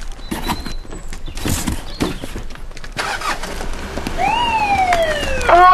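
Scattered clops and knocks, then a police siren that whoops up and slides slowly down in pitch. A louder pitched blare starts just before the end.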